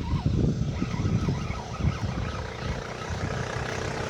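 An engine running, with a low uneven rumble and a steady hum that becomes clear in the second half.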